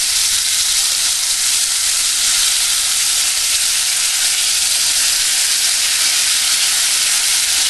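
Butter and brown sugar caramel sizzling steadily in a hot cast iron skillet as wet canned pineapple slices are laid into it.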